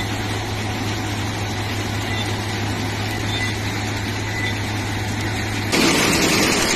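Heavy railway track-maintenance machinery cleaning the track ballast: a steady mechanical drone over a constant low hum. Near the end the sound jumps abruptly louder and hissier.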